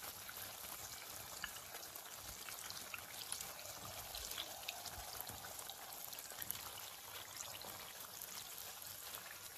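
Pieces of yeasted dough deep-frying in hot peanut oil in a pan: a steady, low sizzle with many small crackles scattered through it.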